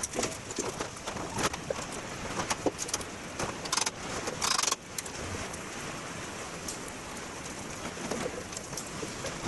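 Workshop handling noise from a sheet-metal front panel being fitted to a truck body frame: scattered clicks and knocks of metal on metal, with a short scraping hiss about halfway through.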